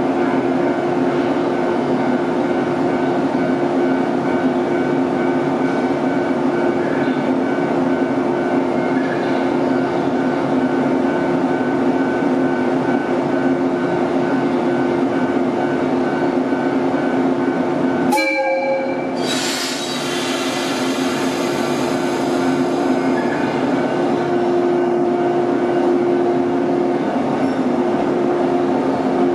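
A JNR 115-series electric multiple unit stands with its onboard equipment running, making a steady hum. About two-thirds of the way through comes a short horn blast followed by a hiss of air, and the train then starts to pull away from the platform.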